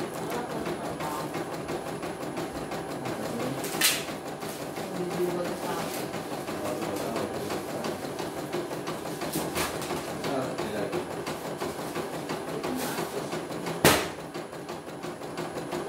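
Computerized embroidery machine stitching a test design, its needle running in a fast, even ticking patter. Two sharp knocks cut through it, about four seconds in and just before the end.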